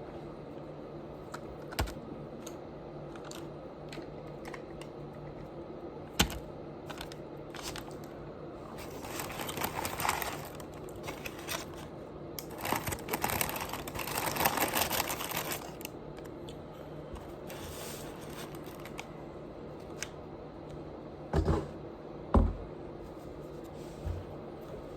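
Close-miked eating and food handling: scattered small clicks and crunches, two longer stretches of crackling in the middle, and a couple of dull thumps near the end, over a low steady hum.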